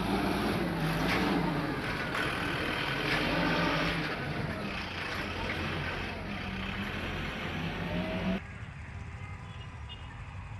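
Diesel engine of a backhoe loader running and revving, its pitch rising and falling, at a demolition site. About eight seconds in the sound cuts abruptly to quieter site background.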